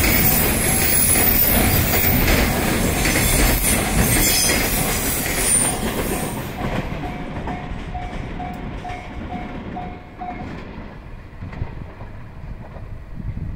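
Container freight wagons rolling past close by with wheel squeal and clatter; the last wagons go by about six seconds in and the noise fades as the train moves away. A level-crossing bell rings in a steady repeating ding and stops about ten seconds in.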